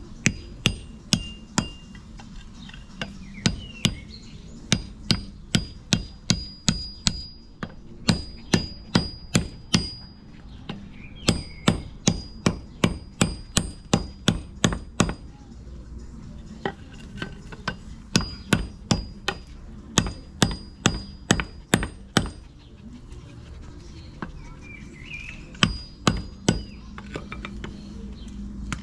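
Hammer blows on the end of a new wooden axe handle, driving it up into the eye of the axe head to seat it. The blows come in runs of several, about two or three a second, with short pauses between runs and a faint metallic ring.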